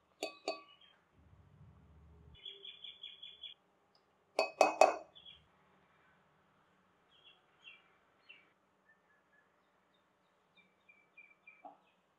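Spoons clinking against a small glass mixing bowl as flour and spices are tipped in: two light taps at the start, a louder cluster of clinks about four and a half seconds in, and a faint tap near the end. Short high chirps, like small birds, come in faint runs between the clinks.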